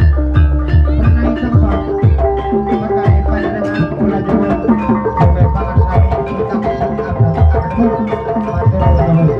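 Javanese gamelan music accompanying the ebeg horse dance: hand-drum strokes whose low pitch drops after each hit, over steady ringing metallophone notes and fast clicking strikes.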